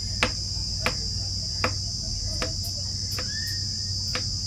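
Steady high-pitched drone of insects, crickets or cicadas, with about six sharp clicks or taps scattered through it and a short rising chirp about three and a half seconds in.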